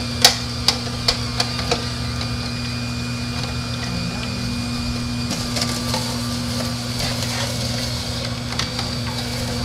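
Philips masticating slow juicer's motor humming steadily while its auger grinds a whole, uncut apple. Sharp cracks of the apple breaking up come in quick succession over the first two seconds, with a few more later.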